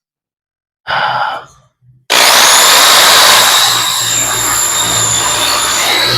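An electric drill starts abruptly about two seconds in and runs steadily at full speed with a high whine, boring a large hole into a wooden door for a deadbolt lock. A brief short rustle comes about a second in.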